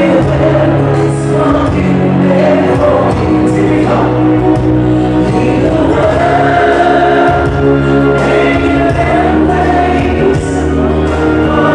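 Loud live music with singing, amplified through the venue's sound system, running steadily without a break.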